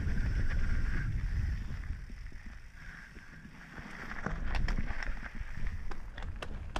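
Mountain bike rolling down a dirt singletrack, wind buffeting the action camera's microphone over the tyre noise. It eases off about two seconds in, then builds again, with a run of sharp clicks and rattles from the bike over bumps in the second half.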